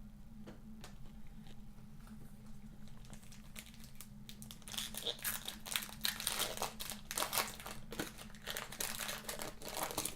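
Plastic foil trading-card pack wrapper being crinkled and torn open by hand, with a few light handling clicks before a dense stretch of crackling starting about four and a half seconds in.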